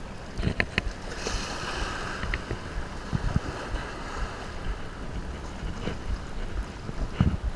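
Small waves lapping and sloshing in shallow saltwater, with wind buffeting the microphone and a few light clicks.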